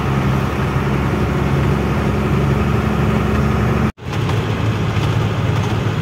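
Truck engine running steadily. About four seconds in there is a very short break, and the engine then goes on a little lower in pitch.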